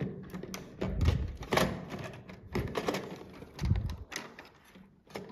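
Built LEGO sets and loose plastic bricks knocking and clicking against each other and a plastic storage box as they are handled and fitted in. The knocks are irregular, several over a few seconds, with soft rustling between them.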